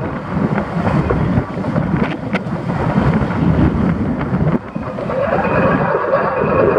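Wind buffeting the microphone of a camera mounted outside a moving car, over road and engine noise. A rising engine note comes in near the end.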